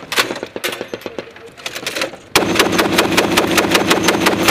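Scattered gunshots, then a little over two seconds in a long burst of automatic fire at a steady rapid rate from a Browning M2 .50-calibre heavy machine gun.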